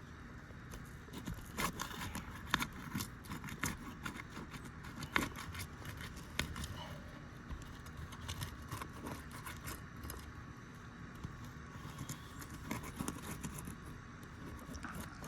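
Metal roof snake working under asphalt shingles: irregular scraping, clicking and crackling as the shingles' sealant strips are broken loose.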